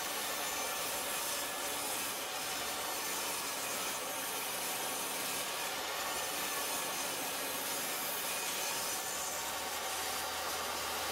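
Jobsite table saw running steadily while its blade cuts through the pine sacrificial strips and end-grain wenge of a cutting board fed across on a crosscut sled.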